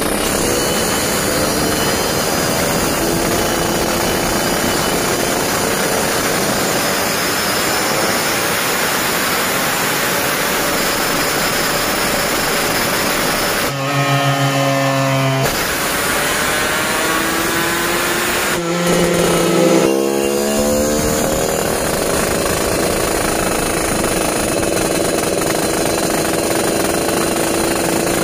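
Yamaha RX-King two-stroke single with an aftermarket Windusari MHR expansion-chamber exhaust, held at wide-open throttle on a chassis dyno during a full pull toward about 8,800 rpm. The engine note climbs slowly through the first half and drops briefly about halfway. It then rises sharply again and holds high and loud.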